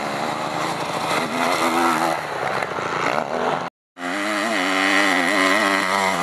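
Motocross dirt bike engine revving as it rides over the dirt track, its pitch rising and falling with the throttle. A little past halfway the sound cuts out for an instant, then the engine is heard again, still revving up and down.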